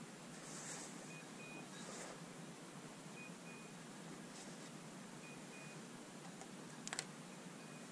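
Faint electronic beeper on a hunting dog's collar sounding a double beep, one short and one longer, about every two seconds, over soft rustling through brush, with a quick cluster of sharp clicks near the end.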